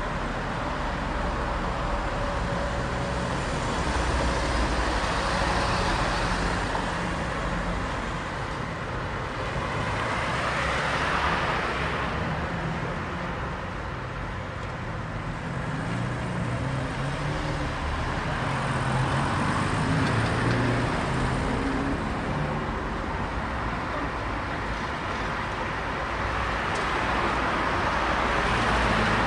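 City street traffic: cars and other motor vehicles driving past in a continuous rumble of engines and tyres, swelling as each one passes, about four times.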